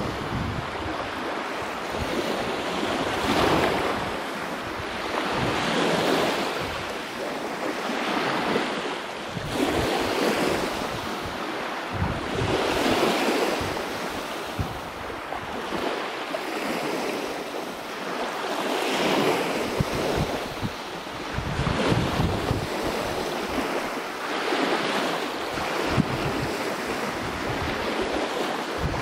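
Small sea waves washing in, swelling and fading every two to three seconds, with gusts of wind rumbling on the microphone.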